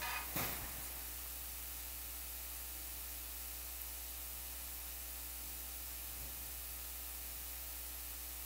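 Steady electrical hum and hiss from the recording chain, with no other sound apart from a short soft noise just after the start.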